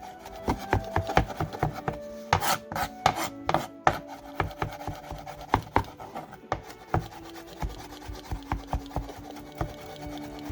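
Irregular rubbing and scraping strokes with sharp taps and knocks, from hand work in a kitchen, under faint background music with held notes.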